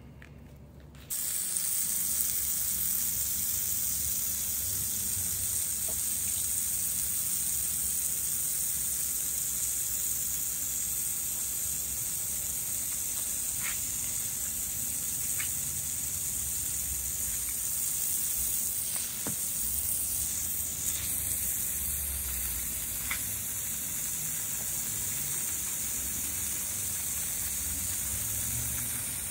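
Water spraying from a garden hose's pistol-grip spray nozzle, a steady hiss that starts suddenly about a second in. The jet splashes onto wet paving stones.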